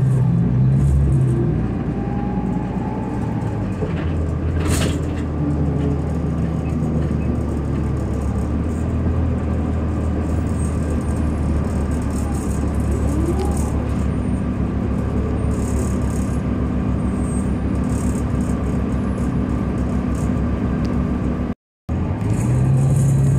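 The Cummins ISL diesel of a 2005 New Flyer D40LF transit bus, heard from inside the passenger cabin: a steady low drone as the bus drives along. There is one sharp knock about five seconds in, and the sound cuts out for an instant near the end.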